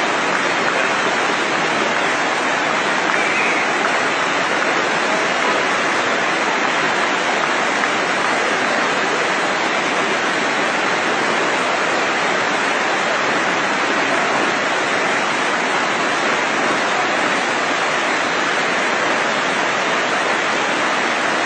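Waterfall rushing: a steady, unbroken sound of falling water.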